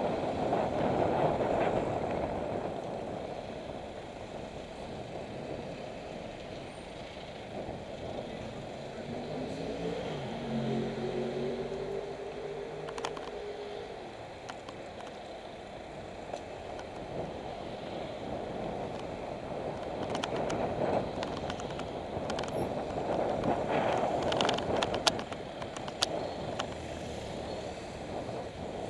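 Wind and road noise on a cyclist's action-camera microphone while riding beside motor traffic, swelling and easing. About ten seconds in, a vehicle engine's pitch rises and then holds for a few seconds, and a few sharp clicks or rattles come near the end.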